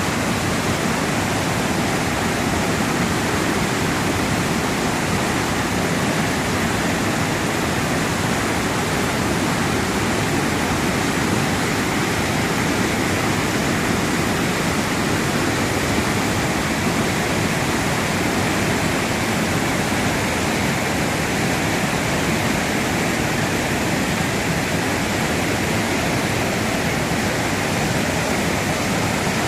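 Waterfall in flood after heavy rain, a steady loud rush of falling water.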